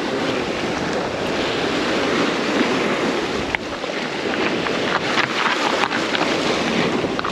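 Sea waves washing and breaking against the jetty's rocks, with wind buffeting the microphone. A few faint clicks come through in the middle.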